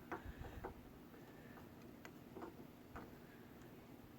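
Faint, irregular clicks and ticks of a kayak's front tie-down strap and its hook hardware being handled and fitted.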